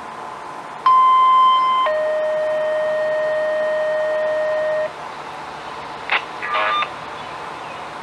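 Two-tone siren activation signal: a steady high beep held for about a second, then a lower steady tone held for about three seconds, over a background hiss. A couple of short bursts of noise follow about six seconds in.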